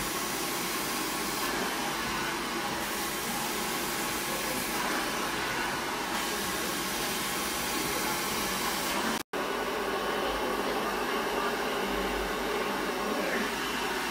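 Hair dryer blowing steadily, a constant rushing of air with a brief cut about nine seconds in.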